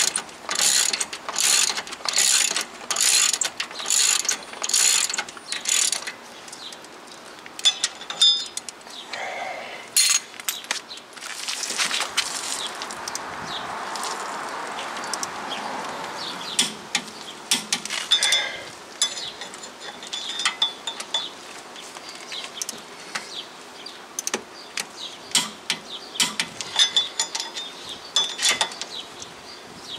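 Ratchet wrench clicking in runs of quick strokes as the 17 mm hub-assembly bolts are snugged down on a rear wheel hub, about two strokes a second at first, then in shorter, sparser runs. A steady rushing noise swells for a few seconds in the middle.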